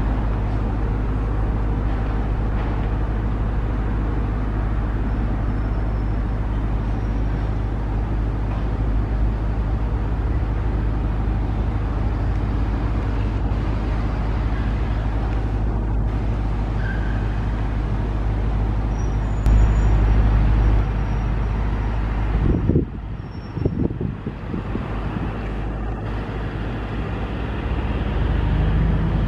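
Steady rumble and hiss of an Airbus A330 airliner's jet engines on final approach with its landing gear down. The sound drops and changes about three quarters of the way through, then comes back up near the end.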